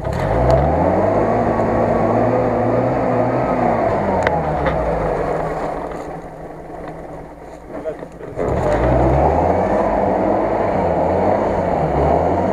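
UAZ-469's engine revving hard as the vehicle pushes through mud, easing off to a lower drone in the middle, then revving up sharply again about eight seconds in.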